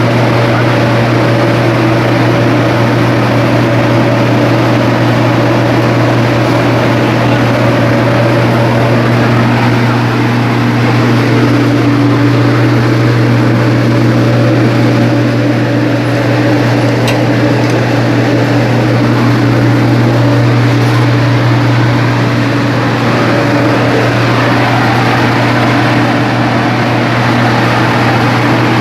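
Box-type dryer running steadily: a loud, constant machine drone with a deep hum and a noisy rush over it, unchanging throughout.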